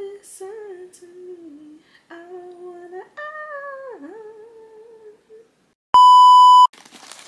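A voice wailing in long, drawn-out sing-song notes, its pitch climbing and then sliding down, as in a crying meme clip. About six seconds in, a loud steady broadcast test-tone beep lasts under a second.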